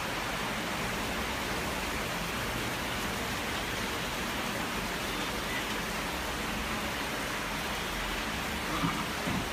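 Steady hiss of heavy rain falling, with a couple of small knocks near the end.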